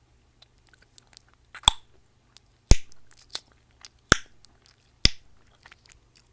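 Close-miked gum chewing with four loud, sharp pops of the gum, about a second apart, and smaller wet clicks of the mouth between them.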